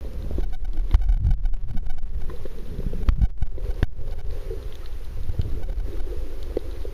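Underwater sound picked up by a camera held below the surface: a muffled, steady low rumble of moving water with scattered faint clicks and pops.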